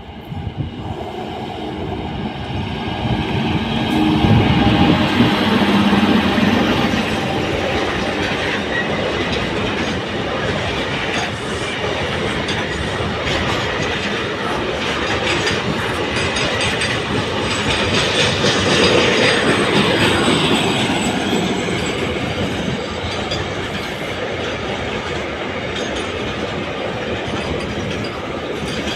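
Indian Railways WAG-9HC electric locomotive passing at speed with a low hum, loudest about five seconds in, followed by a long train of loaded container wagons rolling by with a rhythmic clickety-clack of wheels over the rail joints.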